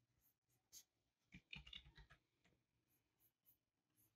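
Near silence, with a few faint clicks and scratchy taps clustered about a second and a half in: a stylus working on a drawing tablet.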